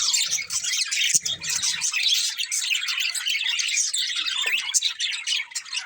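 Budgerigars chirping and chattering continuously in quick, overlapping high chirps and warbles, with a few soft knocks in the first couple of seconds.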